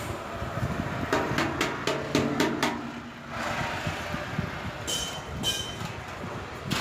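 Metallic knocking: about six quick strikes with a ringing tone, followed a couple of seconds later by two short hissy scrapes, over a steady background noise.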